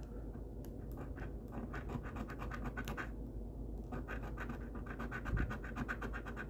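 Scratching the coating off a scratch-off lottery ticket: quick, rapid scraping strokes in two runs, with a short pause about halfway through.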